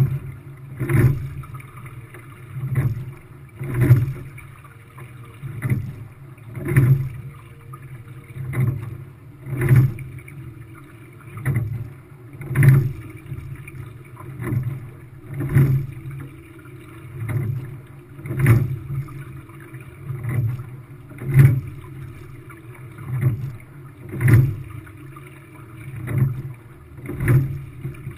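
Quad sculling boat under way: the rowing stroke sets a steady rhythm of sharp knocks from the oars and oarlocks with a surge of water noise, the strongest about every three seconds and lighter ones in between, over a steady low rumble of water along the hull.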